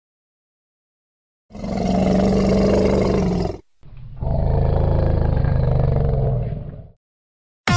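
Elephant roaring twice, two long loud roars, the first about two seconds and the second about three, with a brief gap between.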